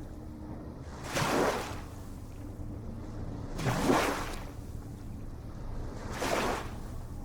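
Small ocean waves washing in, three surges about two and a half seconds apart, the middle one loudest, over a steady low rumble.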